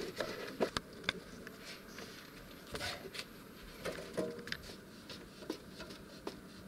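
Scattered light clicks and knocks of pipe fittings and hand tools being handled and fitted onto a water distribution manifold.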